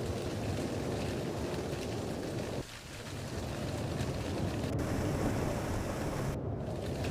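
Strong wind and rain, a steady rushing noise heaviest in the low range, dipping briefly about two and a half seconds in.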